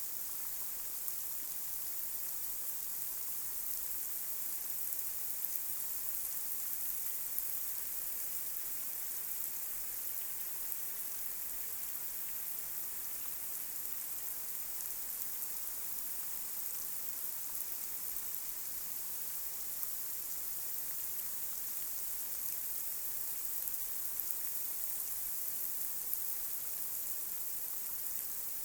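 Light rain falling on a street: a steady high hiss of rain with occasional slightly louder drop ticks.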